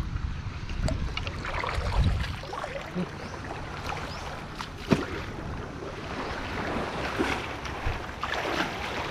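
Legs wading through shallow seawater, splashing and sloshing in repeated bursts, with wind rumbling on the microphone for the first two seconds and a single sharp knock about five seconds in.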